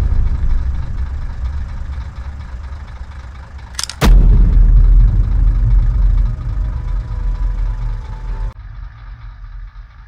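Sound-effects track: a deep rumble dying away, then about four seconds in a sharp bang followed by a loud, deep rumble for about four seconds that cuts off suddenly.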